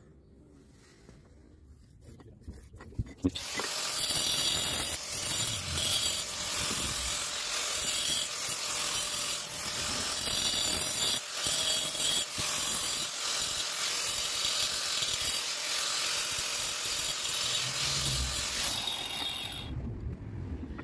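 Angle grinder with a diamond disc cutting through a masonry brick: a loud, steady cutting noise that starts about three seconds in after a few light knocks, and winds down about a second before the end.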